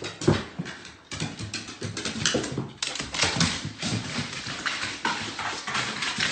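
A dog whining in short bursts, among scattered clicks and taps like claws on hardwood stairs.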